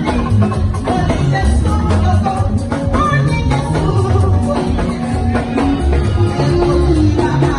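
Music with a heavy bass line, drums and singing.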